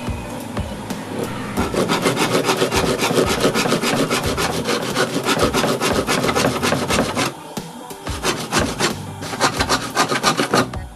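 Hand saw cutting through a thin wooden strip in quick back-and-forth strokes. The strokes stop briefly about seven seconds in, then start again.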